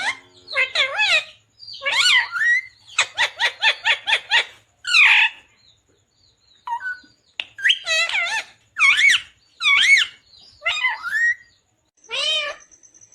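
Indian ringneck parakeet calling and chattering: a string of high, wavering calls in short bursts, with a quick run of short notes and a brief pause about halfway through.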